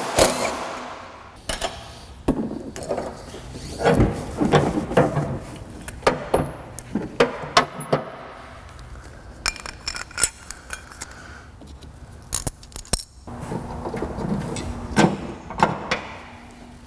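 Irregular metallic clinks, knocks and rattles of hand tools and loose steel suspension hardware being handled during front-suspension teardown.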